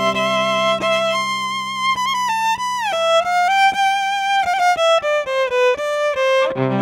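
Five-string solid-body electric violin bowed, playing a melody of held notes joined by pitch slides, over steady low notes underneath. Fuller low notes come back in near the end.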